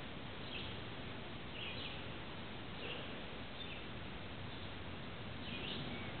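A few short, high bird chirps, spaced irregularly about a second apart, over a steady background hiss.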